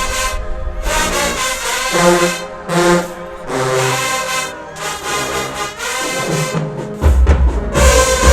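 HBCU-style marching band brass playing a phrase of short, punchy chords; about seven seconds in the full band comes in louder with a heavy low end.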